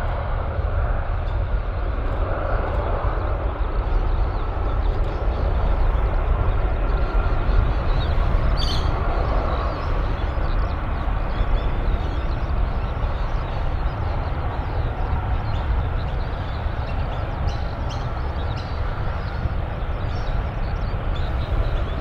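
Steady low jet rumble of a departing Boeing 747-8F freighter's GEnx engines as it climbs away.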